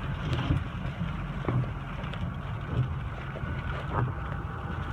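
Hurricane-force wind buffeting the microphone in a steady low rumble, with a few faint ticks, likely rain hitting, over the wash of the storm surf.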